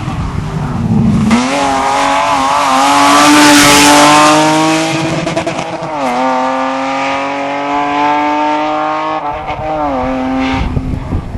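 Rally car engine at full throttle as the car passes, loudest about three seconds in, its note climbing steadily. It drops sharply at a gear change about six seconds in, climbs again and drops once more near the end.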